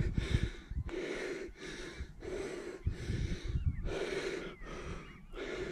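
A man panting hard, with quick, loud breaths in and out about once every three-quarters of a second. He is out of breath from running across a bog.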